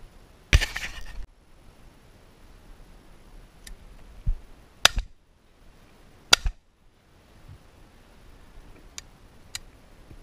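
Two shots from an over-and-under shotgun about a second and a half apart, both barrels fired at wood pigeons. A loud burst of noise lasting under a second comes just after the start.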